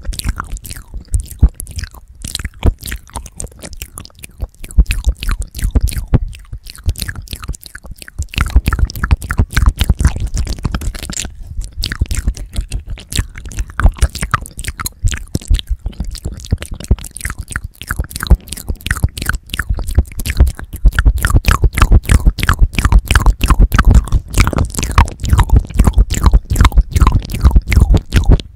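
Wet mouth sounds and licking right on the Tascam DR-40X's microphone capsules: a rapid, unbroken stream of clicks and smacks with deep thuds from contact with the mic, busier and louder in the last third.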